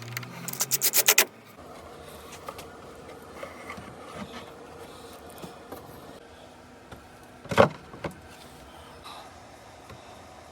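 A rapid run of sharp clicks lasting about a second, then a single loud knock about seven and a half seconds in, against faint workshop noise.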